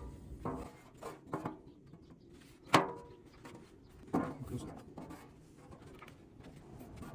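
Handling noises as a new rubber drive belt is worked onto a conveyor's pulleys: light rubbing and a few short knocks, the loudest a sharp knock about three seconds in.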